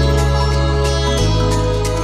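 Background music: sustained pitched instrumental tones over low bass notes that change about once a second, with a light steady beat.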